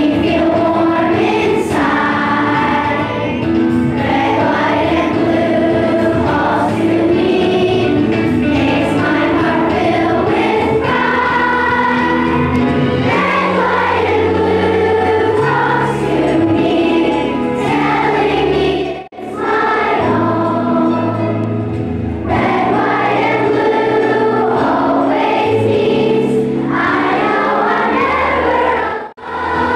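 A large group of children singing a song together over instrumental accompaniment. The sound cuts out briefly twice, about ten seconds apart.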